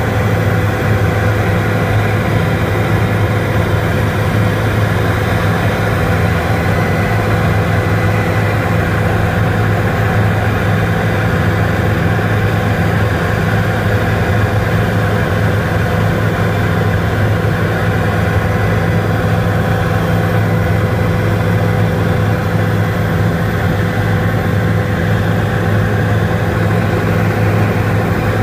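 Helicopter in flight: a loud, steady drone of rotor and engine, strongest in the low hum, with a few faint steady tones above it.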